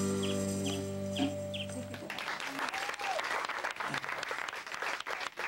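A small rock band with bass and acoustic guitar holds a final chord that stops about two seconds in. Applause from a small audience follows, with one brief whoop.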